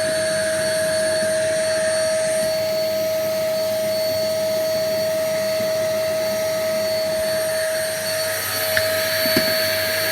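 Kärcher WD 3 P wet/dry vacuum cleaner running steadily with a constant high whine as its floor tool sucks up confetti, with two brief clicks near the end.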